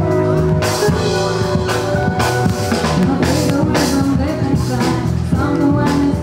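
Live band playing, with a drum kit hitting a steady beat under bass and melody notes.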